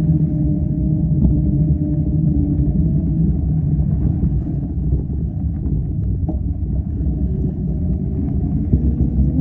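A trail vehicle's motor running at a steady pitch over a low rumble while riding along a deep-sand desert trail.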